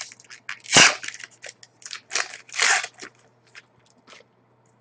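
Hands handling trading cards and a foil pack wrapper: a run of quick clicks and snaps with a few short rustling swishes, the loudest about a second in.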